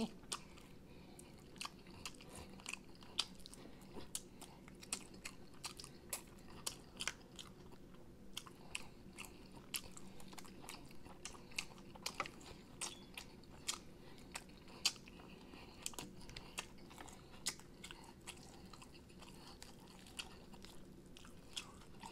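A man eating chicken wings close to the microphone: biting and chewing, tearing meat from the bones, with many short crunchy clicks at an uneven pace, a few a second.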